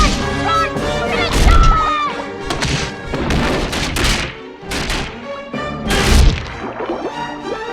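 Dramatic orchestral film score broken by a string of loud crashes and thuds, about half a dozen spread through the passage.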